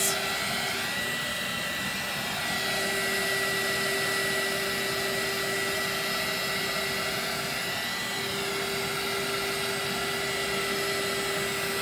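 Handheld craft heat tool running steadily, its fan blowing with a steady high whine over a lower hum, drying a wet water-and-paint wash on canvas.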